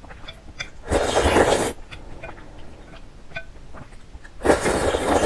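A person slurping noodles: two loud, long slurps, one about a second in and one near the end, with soft chewing and mouth clicks between.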